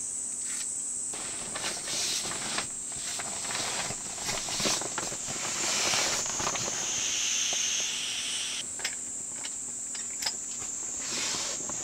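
Camping mat being folded and rolled up with its valve open: fabric rustling and crinkling in irregular bursts, with air hissing out most strongly around the middle, as the mat is squeezed flat to deflate it. Crickets chirp steadily behind.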